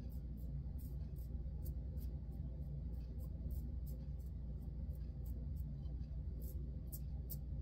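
Timeless 0.68 titanium double-edge safety razor scraping through lathered stubble on the chin and upper lip in short, quick strokes, about three a second, over a steady low hum.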